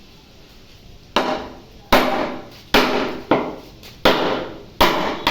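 Hammer blows, seven sharp strikes about one every 0.7 seconds, starting about a second in, each ringing briefly.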